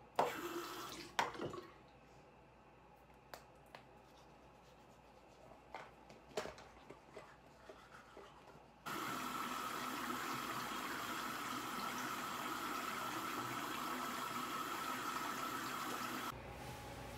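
A few light clicks and knocks, then a tap running steadily into a sink for about seven seconds, starting and stopping abruptly.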